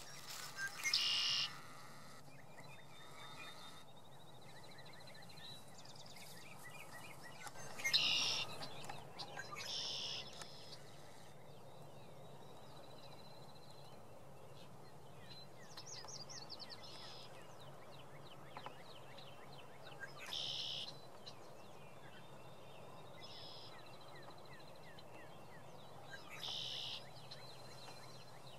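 Spring birdsong: birds chirping and trilling throughout, with a louder short call every few seconds.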